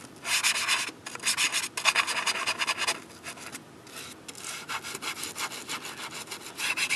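Toothbrush bristles scrubbing back and forth in quick strokes against the aluminium edge of a MacBook Pro's trackpad opening, working loose stubborn gooey residue left by spilled liquid. The scrubbing is strongest for the first three seconds, softer in the middle, and picks up again near the end.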